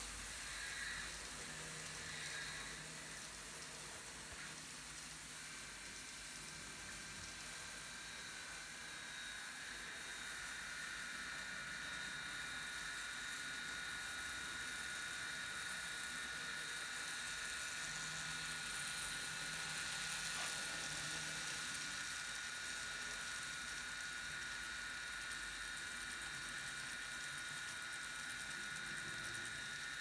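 Sound decoder of an N-gauge Fleischmann BR 193 electric locomotive model playing its start-up electric motor sound through the model's small onboard speaker. It is a steady hiss, with several high whining tones that come in after a few seconds and then hold steady.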